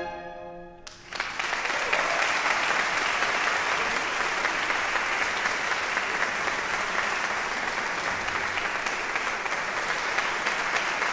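The last clarinet-and-piano note dies away, then audience applause breaks out about a second in and continues steadily.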